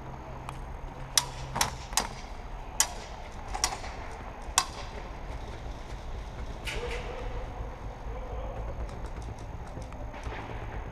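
Airsoft gun firing six single sharp shots at uneven intervals over about four seconds, over a steady low rumble.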